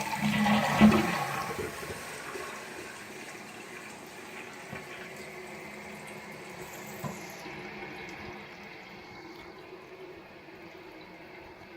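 1993 Kohler Wellworth Lite toilet flushing: the rush of the flush dies away over the first couple of seconds, then the tank refills with a steady hiss of running water that slowly grows quieter. There is a single short knock about seven seconds in.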